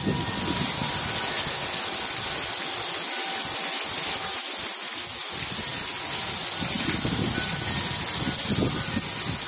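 Heavy rain falling steadily in a dense hiss. Low rumbling comes and goes, strongest near the start and again over the last few seconds.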